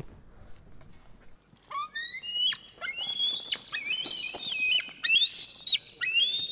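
Eagle calling: a string of high, whistled calls, several in a row, each rising, holding and then dropping, starting about two seconds in.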